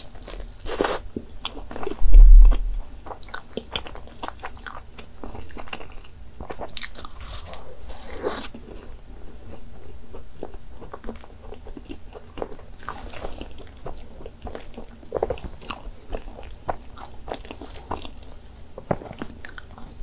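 A person biting into and chewing soft cream-filled pastry, with many small wet smacks and clicks. A brief, loud low thump comes about two seconds in.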